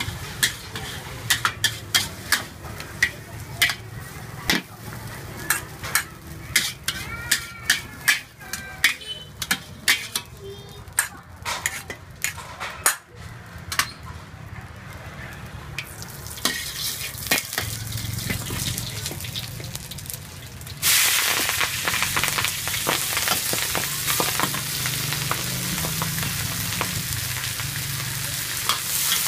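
Sharp knocks and clicks of cooking utensils for the first dozen seconds. About 21 seconds in comes a sudden loud sizzle as green vegetables go into a hot wok over a wood fire, and it keeps on as they are stir-fried.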